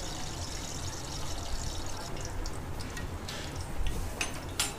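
Carom seeds (ajwain) sizzling and crackling in hot oil as they temper, with a few louder clicks near the end.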